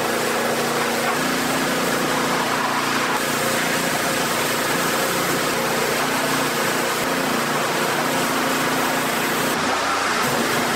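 Pressure washer running: its motor and pump drone steadily under the hiss of the high-pressure water spray rinsing down a compact tractor.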